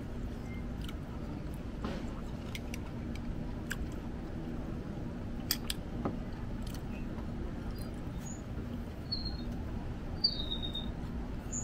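Quiet background with a steady low hum and scattered small clicks, with a few short, high bird chirps in the second half.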